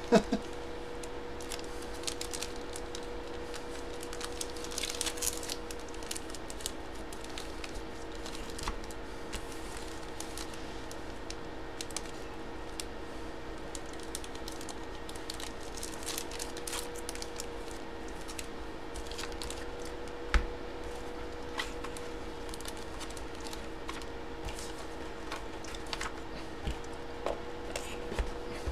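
Small handling noises of collectibles packaging on a tabletop: scattered light clicks and short rustles of a plastic coin slab and card packaging being moved and opened, with a rustling stretch about five seconds in and a sharper knock about twenty seconds in, over a steady low electrical hum.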